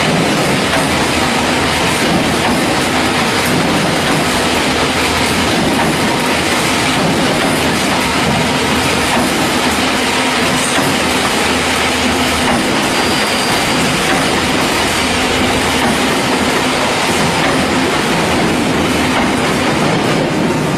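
Hexagonal wire mesh (gabion) weaving machine running, a loud, steady metallic clattering rattle as it twists and weaves wire into mesh.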